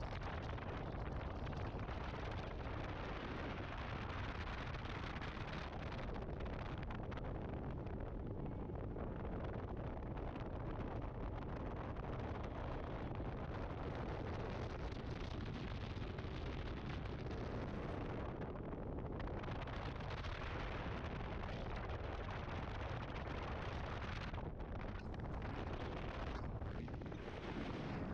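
Steady buffeting of wind on the microphone of a bass boat planing at speed, over the low rush of the boat's engine and water. Unbroken, then fading out at the very end.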